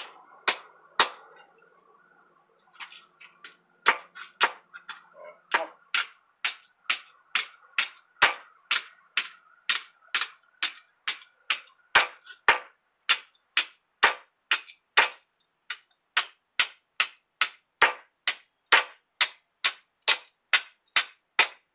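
Hammer striking a steel dog tie-out stake on a concrete slab: a steady run of sharp metallic blows, about two a second, bending the steel rod into shape. The blows pause briefly about a second in, then resume.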